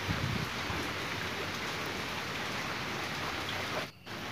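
Steady rain, an even hiss of falling water that dips away briefly about four seconds in.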